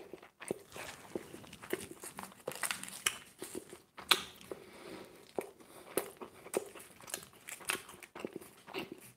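A person biting into and chewing a slice of ham and fried-egg pizza, close to the microphone: irregular short clicks and mouth sounds.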